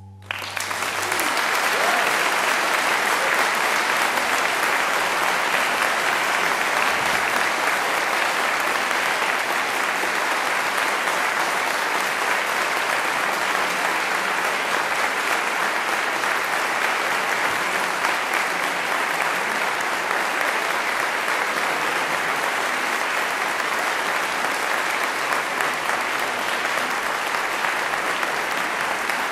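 Audience applauding in a concert hall, the clapping swelling up within the first second or two and then holding steady.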